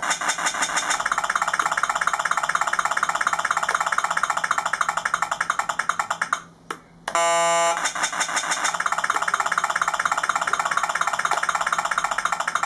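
Technobots electronic sound module on an RC crawler, playing a simulated engine running as a rapid, even pulsing through its small speaker. About halfway through, the engine sound drops out briefly and a short electronic horn blast sounds, then the engine sound resumes.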